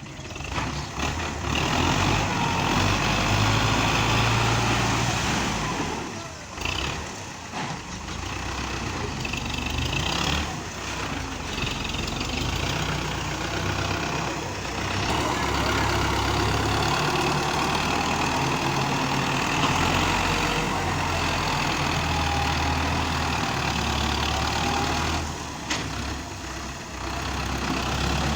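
Belarus MTZ-510 tractor's diesel engine running, its speed and loudness rising and falling, with brief dips about a quarter of the way in and again near the end.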